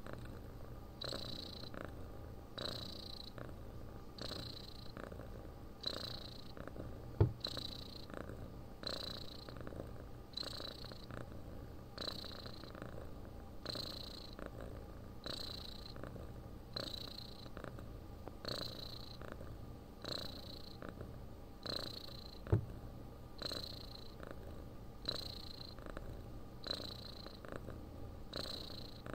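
Domestic cat snoring and purring in its sleep: a steady low purr with a soft, wheezy breath about every one and a half seconds. There are two brief sharp clicks, about a quarter and three quarters of the way through.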